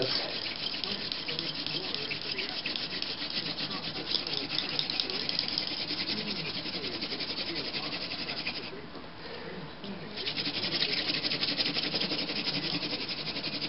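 Hand drill friction fire: a plant-stalk spindle spun rapidly back and forth between the palms, grinding into a white pine hearth board to heat the set toward smoke. It makes a fast, steady rubbing with a short lull about nine seconds in.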